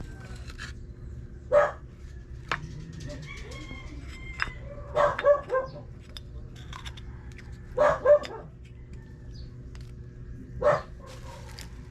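A rooster crowing and chickens calling in short, loud calls: one call, then a run of three, then a pair, then one more, over a steady low hum.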